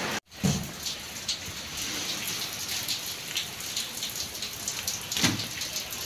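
Steady rain falling and pattering, many small drop ticks over a constant hiss, with a brief louder rustle about five seconds in.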